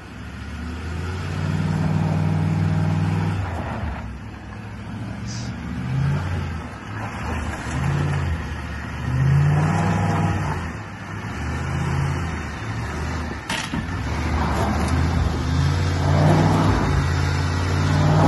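Ford F-150 pickup engine revving in repeated surges, rising and falling as the truck crawls up a rutted, rocky trail. A single sharp click comes about two-thirds of the way through.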